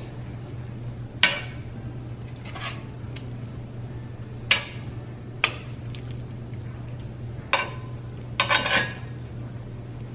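Metal tongs clinking against a nonstick skillet as grilled chicken breasts are moved into the sauce. There are several separate sharp clinks, then a quick cluster of them near the end, over a steady low hum.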